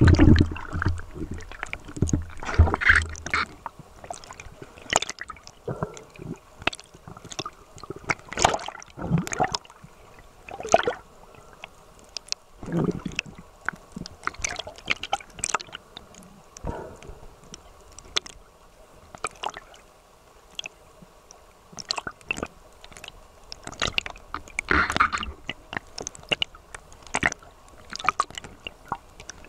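Water heard from just below the surface: irregular sloshing and gurgling as a snorkeler strokes and paddles through it, with scattered sharp splashes and a few low rumbling surges, the loudest at the very start.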